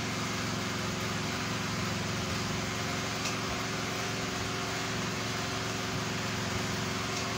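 Steady machine hum with several held low tones and an even hiss, unchanging throughout.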